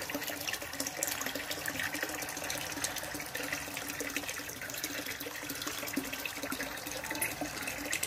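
Water running and splashing steadily in a garden pond, a continuous trickle dotted with small splashes.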